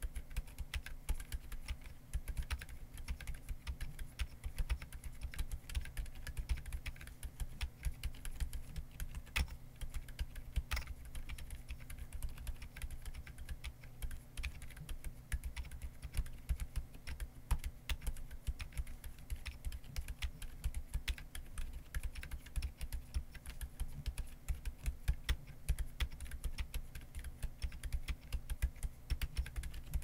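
Continuous typing on an Akko ACR Top40 keyboard with Akko Fairy silent linear switches and Hyperfuse SA-profile double-shot ABS keycaps: a dense, unbroken stream of soft, low-pitched keystrokes.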